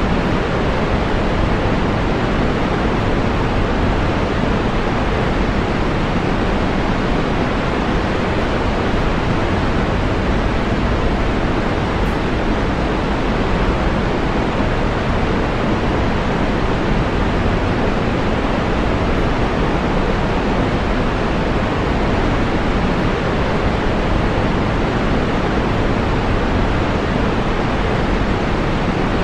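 Waterfall rushing in a steady, unbroken roar of falling water, strongest in the low and middle range, with no change in level.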